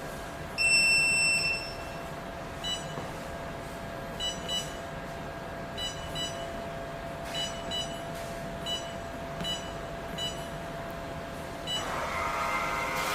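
Electronic beeps from a compact jewellery laser welding machine: one longer high beep about half a second in, then short beeps, some in quick pairs, at irregular intervals over a steady machine hum.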